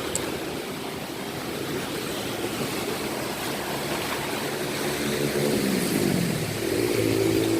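An engine running steadily, with its pitch dropping about five to six seconds in and then holding steady.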